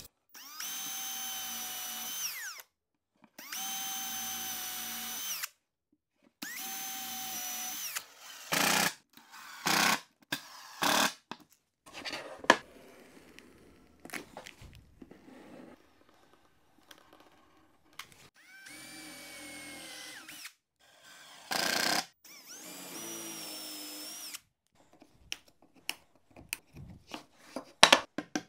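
Handheld power drill driving screws into a plywood box. It runs in short bursts of about two seconds, each with a steady whine that winds down as it stops, and several sharp knocks fall between the runs. A quick series of clicks comes near the end.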